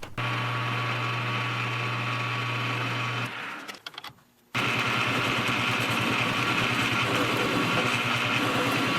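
Metal lathe running with a steady low hum, which dies away to near silence about four seconds in. The lathe then starts again with a faster, even mechanical rattle.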